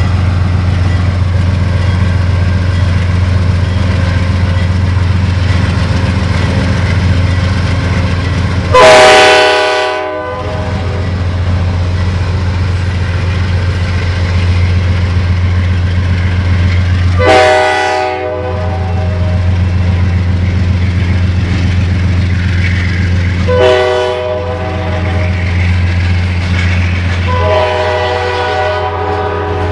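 GE P32-8BWH diesel locomotive in Amtrak California livery pulling a bilevel passenger train out of the station, its engine running steadily with a low drone. Its multi-chime air horn sounds four times: long, long, short, long, the grade-crossing signal.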